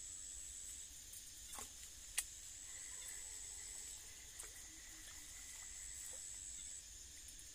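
Faint, high-pitched insect calling, a steady shrill drone that breaks off and starts again a few times. A single sharp click about two seconds in.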